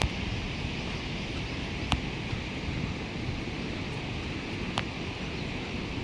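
Steady outdoor noise, an even hiss like wind or rain in foliage, with a few single sharp ticks, the clearest about two seconds in and near the end.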